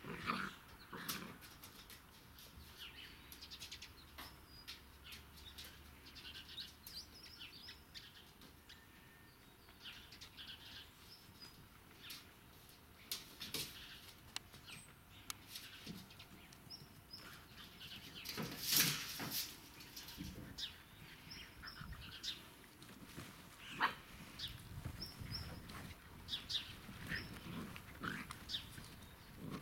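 Irish Setter puppies at seven weeks giving scattered short yips and squeaks as they play, with small birds chirping in the background.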